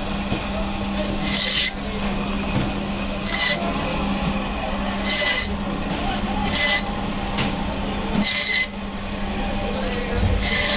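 Electric band saw running with a steady hum while its blade cuts crosswise through a whole fish, flesh and backbone, in six short cuts about one every two seconds.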